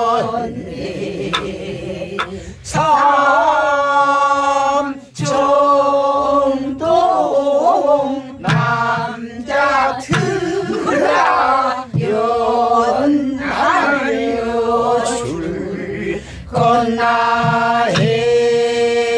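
Voices singing a Korean Namdo folk song together in the throaty, wavering Namdo style, to sharp stick strokes on a buk barrel drum that keep the beat.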